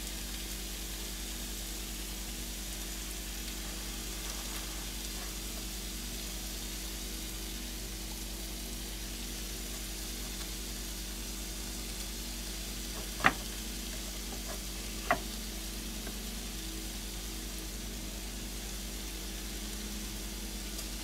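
Shrimp and artichokes sizzling steadily in two frying pans over gas burners, with two sharp clicks a little after halfway.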